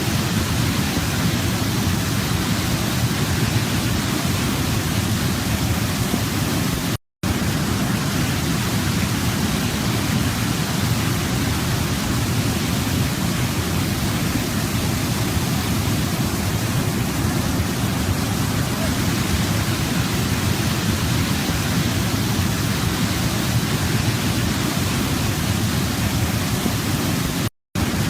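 Waterfall rushing in a steady, deep hiss of falling water. It cuts out to silence for a moment twice, about seven seconds in and again near the end.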